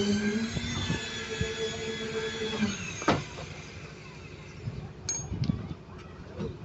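A motor running with a steady hum that winds down and stops just under three seconds in, followed by a sharp click.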